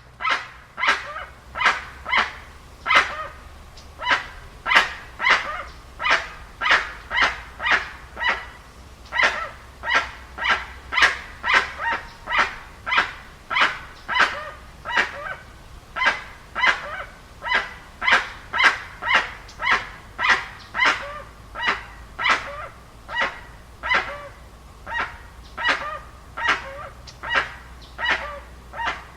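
Dusky-legged guan (Penelope obscura) calling: loud, short honking calls repeated in an unbroken series, nearly two a second.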